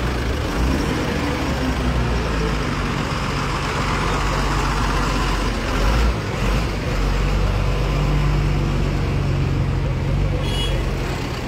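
Heavy vehicle engine idling close by, a steady low rumble, with street traffic noise around it and a brief high squeak near the end.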